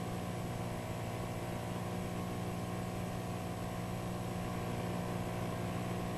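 Small four-horsepower outboard motor running steadily under way, an even, unchanging drone.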